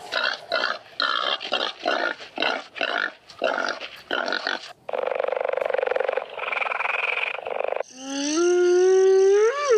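A series of recorded animal calls: a run of short, rapid calls for about five seconds, then a long rough roar-like sound, then a clear pitched call that slides up and peaks near the end.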